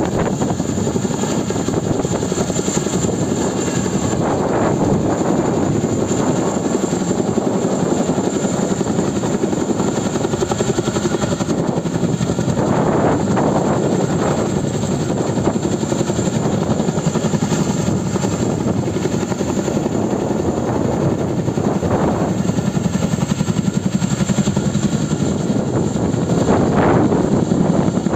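Boeing Vertol 234 Chinook tandem-rotor helicopter hovering overhead, its rotors beating steadily and loudly.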